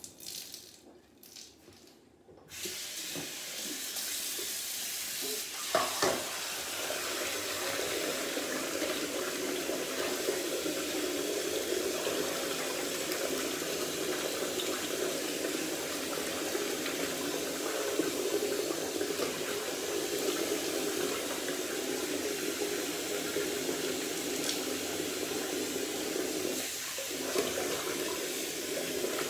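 Bathroom sink tap turned on about two and a half seconds in and running steadily while a badger shaving brush is rinsed under it, with a short knock about six seconds in. The tap whistles, which the owner says is a little messed up.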